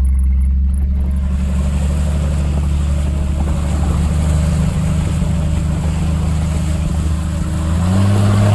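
1991 Jeep's engine running as it drives, its tailpipe torn off, with a steady rushing hiss over it from about a second in; near the end the engine speeds up.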